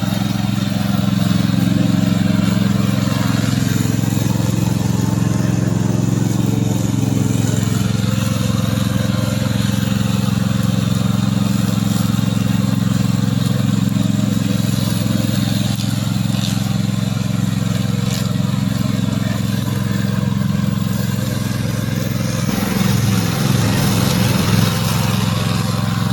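Gasoline engine of a tracked remote-control lawn mower running steadily. Its note wavers briefly near the end.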